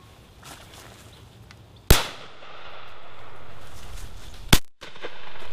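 Two 12-bore shotgun shots about two and a half seconds apart: both barrels of a Fausti side-by-side fired in turn at passing wood pigeons.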